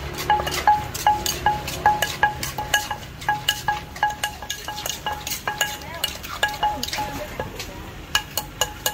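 Som tam being pounded with a pestle in a mortar: a steady run of knocks, about two or three a second, each with a short ringing tone.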